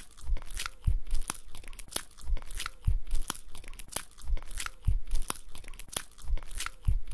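Exaggerated wet chewing and crunching of a sandwich, bite after bite. The crackling crunches come in a steady rhythm, with a deeper thump about every second.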